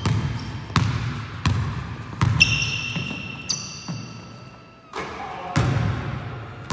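Basketball dribbled on a hardwood sports-hall floor, with a bounce about every 0.7 s. About two and a half seconds in there is a long, high sneaker squeak on the court, and then a few more bounces near the end.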